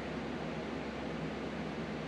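Steady hiss with a low hum, like a fan or other shop machine running, with no sudden sounds.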